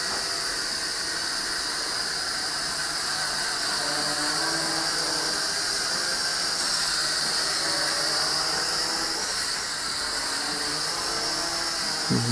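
MJX X400-V2 quadcopter's motors and propellers whirring steadily in flight: a high, hissing whine with a fainter hum underneath whose pitch wavers as the throttle changes.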